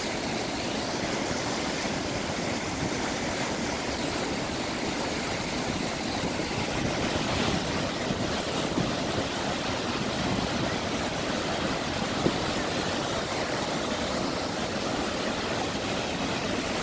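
Niagara Falls' water rushing and crashing down in a steady, unbroken roar.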